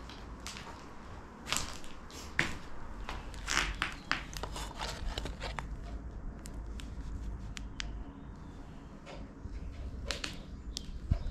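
Irregular crunches and clicks of footsteps on a floor littered with rubble and debris, thicker in the first half and sparser later, over a low steady rumble.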